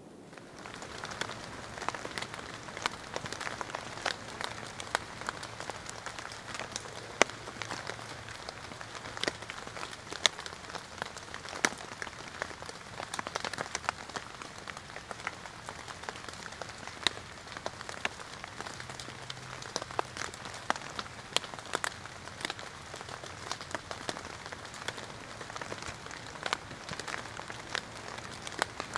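Steady rain falling in a forest, with many sharp, close drops striking amid the even hiss of the rainfall.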